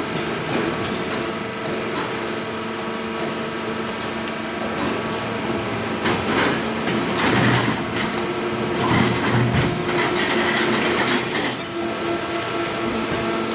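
Heavy industrial crushing machine running with a steady mechanical hum, with irregular grinding and knocking that grows louder between about six and eleven seconds in.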